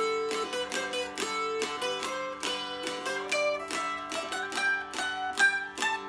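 Newly built mountain dulcimer of painted poplar and northern cherry, with a 25-inch scale and a doubled melody string, strummed in an even rhythm. A fretted melody moves over the steady ringing drone strings.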